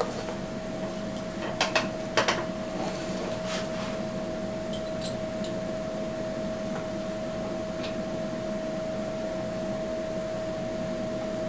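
Steady mid-pitched electrical hum, with a few sharp metallic clinks of tools about two to three seconds in.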